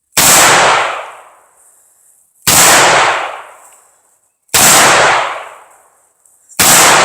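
Four shots from a .357 Magnum revolver firing 158-grain handloads, about two seconds apart. Each loud crack is followed by an echo that fades over about a second.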